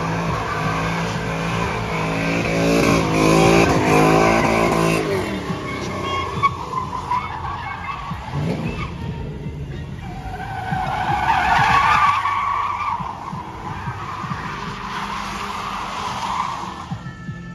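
A car drifting in circles with its rear tyres spinning: the tyres squeal over a hard-running engine. The squeal swells again about ten seconds in.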